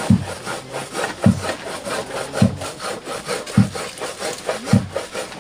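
Hand saw cutting wood in steady strokes: a dull thud a little more than once a second with rasping between.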